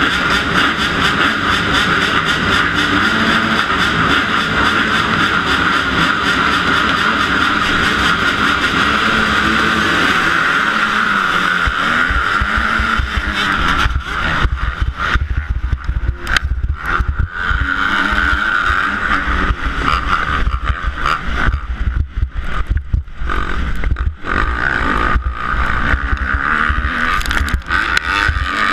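A pack of motocross bikes running steadily at the start gate, then launching about twelve seconds in. After that the sound is mostly the rider's own Kawasaki KX250F four-stroke 250 single, revving up and down unevenly as it is ridden hard over the dirt track.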